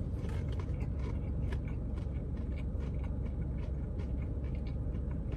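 Chewing a crispy breaded buffalo chicken tender: many small, irregular crunches over a steady low hum in the car cabin.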